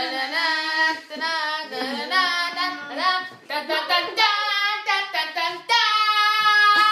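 Excited high-pitched singing voices, then about two-thirds through a teenage girl's long, steady squeal of delight, the loudest part.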